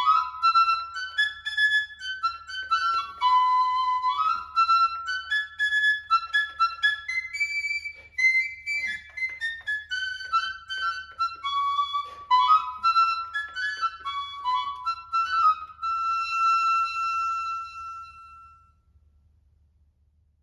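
Roland AE-20 Aerophone digital wind instrument playing a high, woodwind-like melody of quick separate notes, ending on one long held note that fades out. A faint steady low hum sits underneath.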